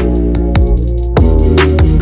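Electronic background music with a heavy beat: deep bass notes, sharp drum hits with falling pitch sweeps after them, and quick hi-hat ticks.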